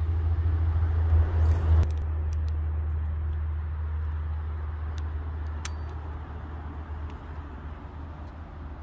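Wind rumbling on a phone's microphone, strongest for the first two seconds and then slowly easing, with a couple of faint ticks about five seconds in.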